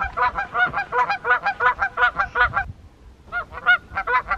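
Geese honking in a quick run of calls, about five a second, breaking off briefly after about two and a half seconds and then starting again.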